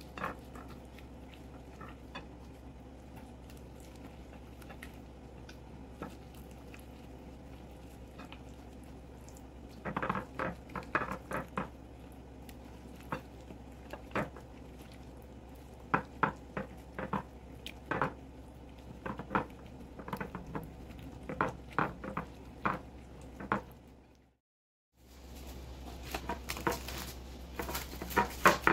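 Gloved hands squishing raw chicken drumsticks through a liquid marinade in a glass bowl: wet squelches and light taps against the glass, over a steady low hum. Near the end, after a brief break, plastic cling film crinkles as it is stretched over the bowl.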